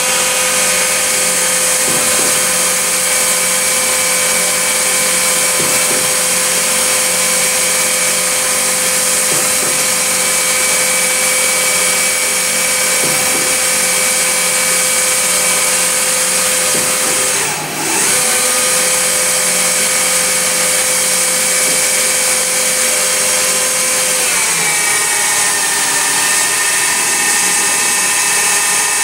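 EMCO CNC lathe running a program: a steady whine from the spindle and drives, running the program clear of the workpiece rather than cutting. The loudness dips briefly about 18 s in, and about 25 s in the pitch glides down and settles lower as the speed changes.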